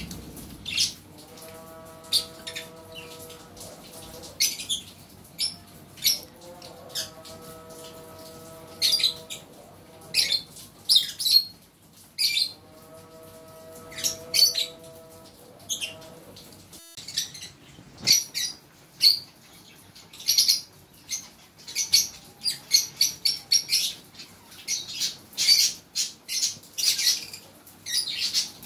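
Fischer's lovebirds chirping: many short, sharp, high-pitched chirps in quick runs, coming thicker in the second half.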